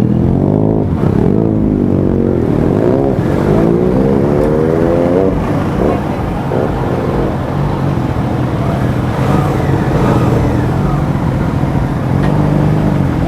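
Suzuki GSX-8S's parallel-twin engine accelerating through the gears, its pitch rising several times and dropping at the shifts, the longest climb ending about five seconds in. After that it runs at a steadier, lower note.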